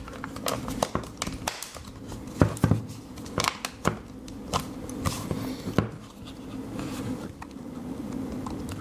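Plastic air conditioning remote control being handled, giving a series of sharp plastic clicks and taps, with a faint steady hum underneath.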